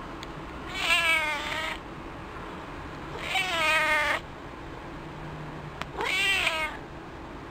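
A stray cat giving three drawn-out, wavering meows of about a second each. These are the strange cries it makes when stroked around its lower back.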